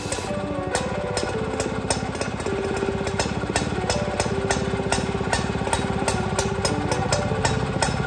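Robin EC17 175cc two-stroke single-cylinder engine running steadily just after being started, with rapid, evenly repeated firing pops.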